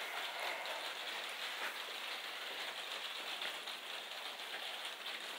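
Steady rain falling, an even patter that does not let up.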